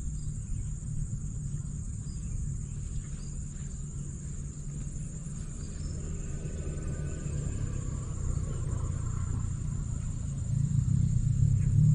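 Insects chirring in one steady high tone over a continuous low rumble; about ten seconds in, the low rumble grows louder.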